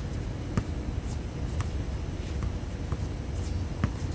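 Basketball bouncing on a hard court: a few scattered thumps at uneven intervals, over a steady low background rumble.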